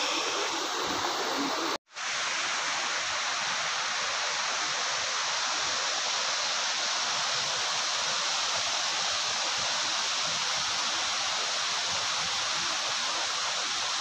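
Mountain stream rushing over rocks: a steady, even rush of water, with a brief gap a little under two seconds in.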